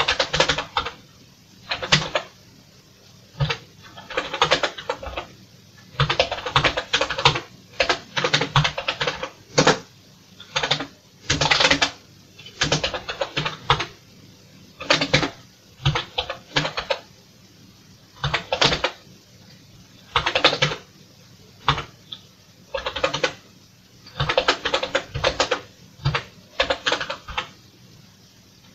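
Keystrokes on a computer keyboard, typed in short runs with brief pauses between them.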